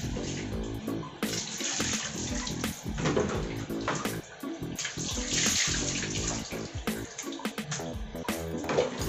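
Water poured from a plastic dipper over a wet husky puppy, splashing onto the dog and the tiled floor in several long pours, over background music.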